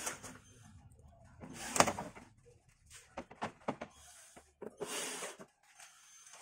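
Clicks, knocks and short scraping rustles of hands working on the plastic back cover of an LCD TV on a workbench. The loudest is a sharp knock about two seconds in, with another brief scrape about five seconds in.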